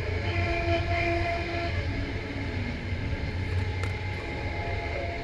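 Passenger train running on the rails with a steady low rumble. Over the first two seconds a ringing, whining tone of the 'singing rails' rides on top, and a few sharp clicks come a little before four seconds in.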